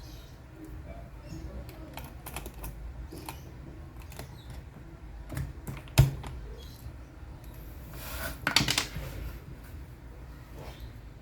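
Keys of a mechanical keyboard being pressed in scattered clicks, with one sharp, loud knock about six seconds in and a brief noisy rustle or scrape about eight and a half seconds in.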